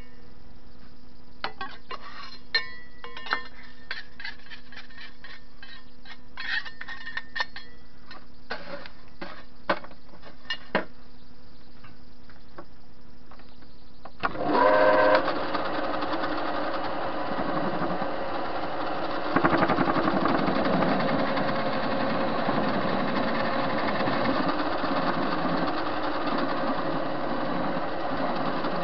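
Scattered metallic clinks and taps as tools and parts are handled at a TV-16 lathe. About halfway through, the lathe starts up with a sudden loud onset and runs steadily, getting a step louder about five seconds later.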